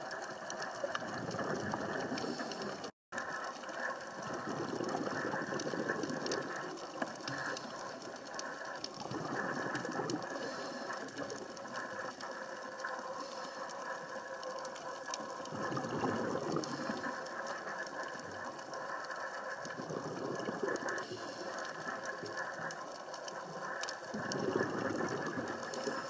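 Underwater sound on a scuba dive: a steady hiss and rumble, with a louder swell of bubbling every four to five seconds, typical of a diver's regulator exhaling. The sound cuts out briefly about three seconds in.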